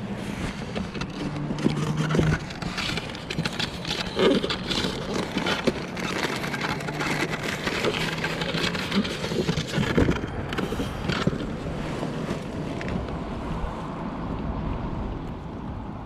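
Plastic tackle-box lid and cooler being handled: irregular clattering and rustling, loudest in the first two thirds, then settling. A low steady hum runs underneath at times.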